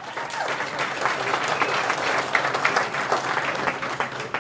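Audience applauding, the clapping dying down at the end.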